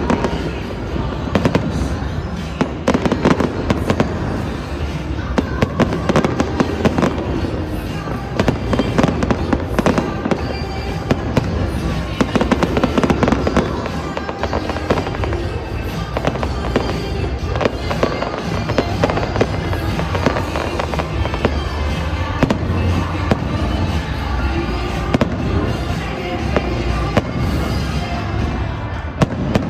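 Fireworks show: a dense, continuous run of bangs and crackles going off many times a second, with music playing underneath.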